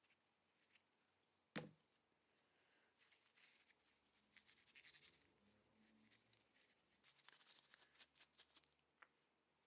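Faint rubbing of a cloth and gloved fingers working grease onto small steel coil springs, with a few light clicks. One sharp knock, the loudest sound, comes about a second and a half in.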